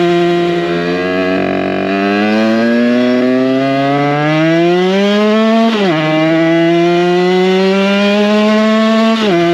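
Derbi 50cc two-stroke engine with a 70cc Metrakit Pro Race kit, running under way on the road. The revs sag about a second in and then climb steadily for several seconds. They drop sharply at a gear change about six seconds in, hold steady, and dip briefly again near the end.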